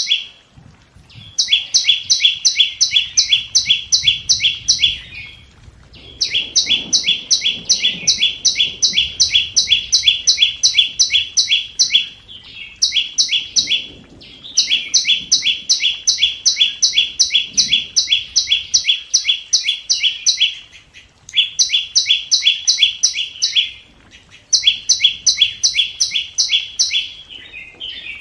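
Scarlet-backed flowerpecker calling: quick, high ticking notes, about five a second, in runs of a few seconds separated by short pauses. It is the call used as a lure for trapping wild birds.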